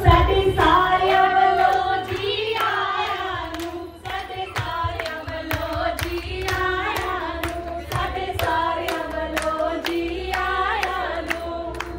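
High female voices singing a Punjabi boliyan folk verse, accompanied by steady rhythmic hand clapping as for giddha.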